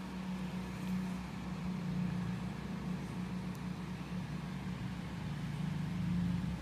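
A steady low mechanical hum, like a fan or small motor, running evenly with a faint hiss over it.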